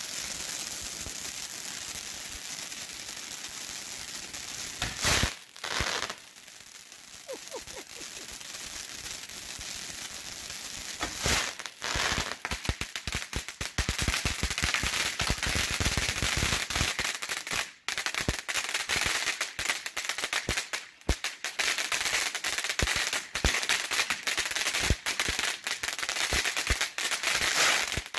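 Brothers Pure Fantasy fountain burning with a steady hiss of its spark spray. Two loud sudden bursts come about five and eleven seconds in as its mine shots fire, then dense crackling runs through the second half.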